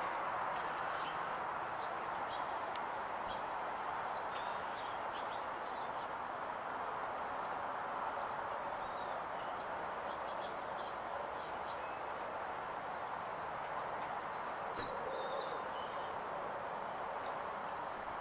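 Steady outdoor background noise with faint, scattered bird chirps, including a short trill about halfway through.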